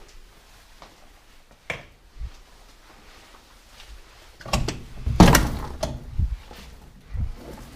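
A sharp knock about two seconds in, then a cluster of heavy knocks and thuds from about four and a half to six seconds in, with another knock near the end.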